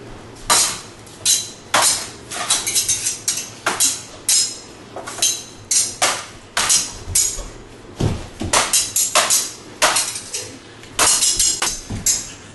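Repeated sharp metallic clinks and clangs of blades striking one another, about two a second, with quicker flurries of hits.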